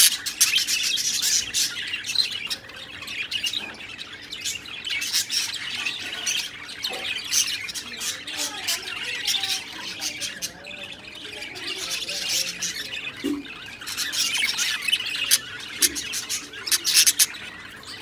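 A flock of budgerigars chattering: a continuous mix of warbling chirps and sharp squawks, growing louder every few seconds.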